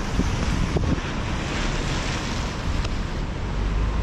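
Wind buffeting the microphone in a steady low rumble, over the wash of sea surf.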